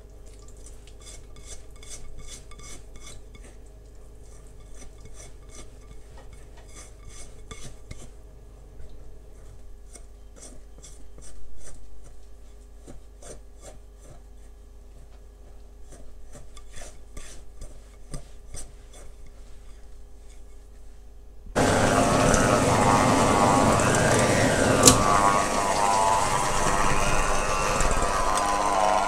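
Food being grated by hand on a metal grater: rasping strokes in quick runs with short pauses between them. About two-thirds of the way through, loud music cuts in suddenly.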